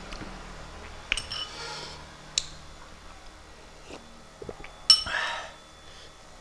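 Metal spoon clinking against a glass bowl and plate while eating: three sharp ringing clinks, about a second, two and a half and five seconds in, the first and last each followed by a short scrape.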